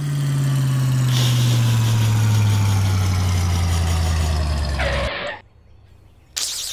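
Truck engine sound effect running with its pitch falling steadily. It ends with a short hiss and cuts off suddenly about five seconds in.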